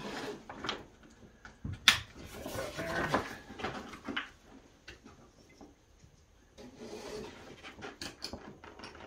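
Stiff waterproof fabric of a roll-top canoe pack rustling and crinkling in irregular bursts as its top is folded and rolled down to press the air out, with scattered clicks and one sharp knock about two seconds in.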